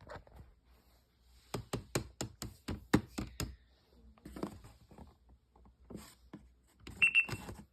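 Sharp clicks and knocks of fire alarm equipment being handled and operated: about ten in quick succession over two seconds, then scattered softer taps, and a short high beep about seven seconds in.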